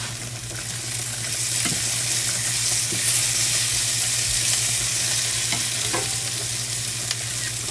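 Yak ribeye steaks sizzling on an indoor electric grill: a steady frying hiss that grows a little louder after about a second, over a steady low hum, with a few faint clicks.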